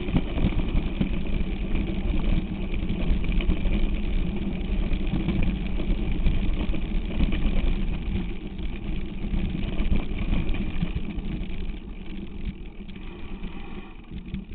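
Wind buffeting the camera's microphone, with a mountain bike's tyres rumbling and rattling over loose sand and gravel on a fast downhill run. The noise dies down near the end.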